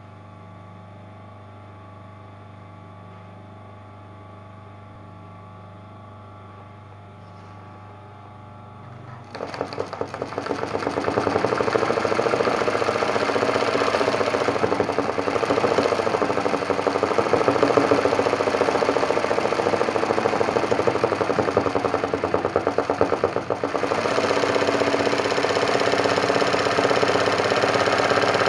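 Sewing machine stitching at speed, a fast even needle rhythm that starts about nine seconds in after a low steady hum and then keeps running.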